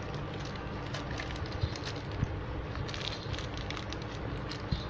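Clear plastic packaging bags crinkling and rustling as soldering iron kit parts, including the spring stand, are handled, with three short sharp taps.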